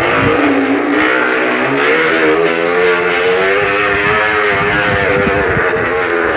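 A noisemaker fitted to a bicycle gives off a motorcycle-like buzz while the bike is ridden. The pitch wavers, rising in the middle and falling again.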